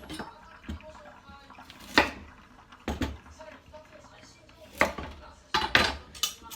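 Kitchen utensils and cookware clanking: a series of irregular sharp knocks about a second apart, with a quick cluster near the end.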